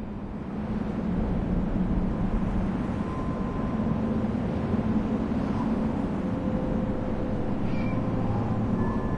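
Wind rushing, swelling over the first second or two and then holding steady, over a low hum. A short high-pitched cry comes about eight seconds in.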